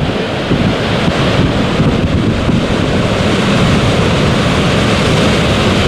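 Surf breaking on a rocky shore, a loud steady rush, with wind buffeting the microphone.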